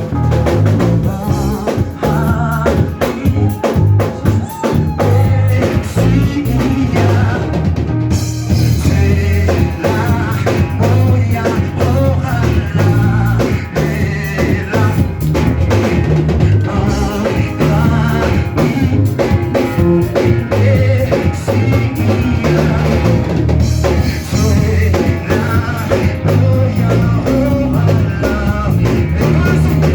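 Live church worship music: a band with drum kit and bass guitar playing a steady beat, with singing.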